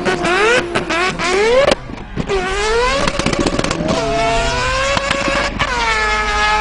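Turbocharged Mazda 20B three-rotor engine revving hard during a burnout. Its pitch climbs in repeated sweeps, dips briefly about two seconds in, then falls and climbs again near the end.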